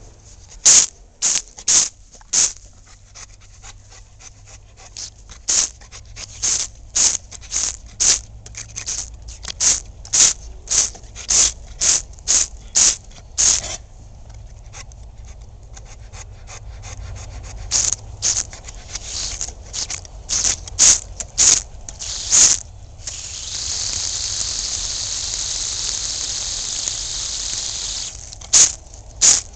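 Water from a garden hose splashing against a Rottweiler's mouth as it snaps at the stream: a string of short, sharp splashes, often about two a second, with a lull in the middle. Near the end comes a steady hiss lasting about five seconds while the stream plays on its open mouth, then a few more splashes.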